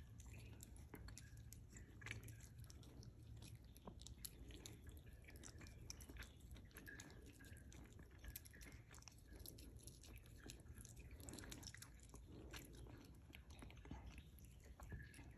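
Small dog chewing a piece of oat pancake, a faint, rapid run of wet clicks and smacks.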